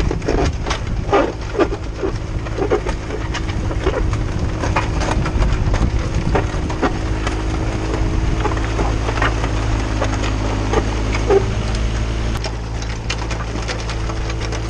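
Komatsu PC15R mini excavator's diesel engine running steadily, with repeated crunching and clicking of loose gravel under its tracks and dozer blade as it pushes the road surface.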